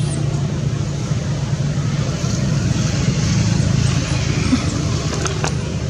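A motor vehicle engine drones steadily and low, with a few faint high chirps and a sharp click near the end.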